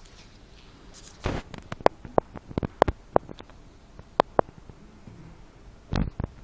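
A run of sharp wooden clicks and knocks, like chess pieces set down on a board and chess-clock buttons pressed. There are about seven clicks in two and a half seconds, with a duller thump before them and another near the end.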